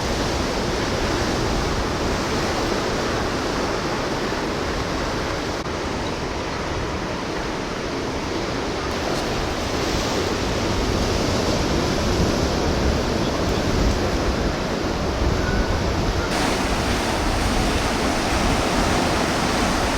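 Ocean surf washing onto the shore, a steady rushing noise that swells a little louder in the second half.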